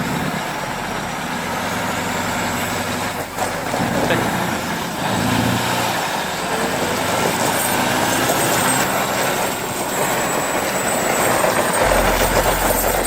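A log truck's engine revving hard while its wheels spin in deep snow and find no grip, so the truck stays stuck at the foot of the slope.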